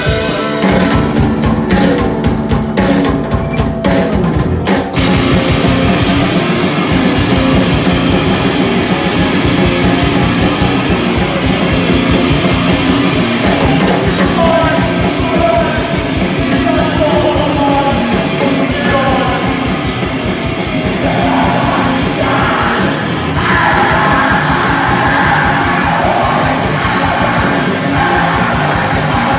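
Loud live rock from a drums-and-electric-guitar duo: a drum kit with cymbals crashing and an amplified electric guitar playing heavy riffs. The first few seconds come in choppy stop-start hits, then the band settles into a driving, continuous groove.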